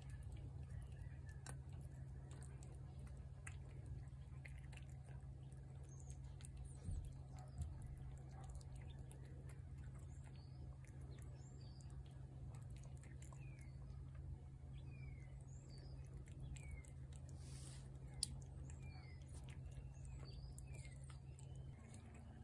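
A cat chewing wet food, faint quick clicks of eating. Small birds chirp in the background from about halfway on, over a steady low hum.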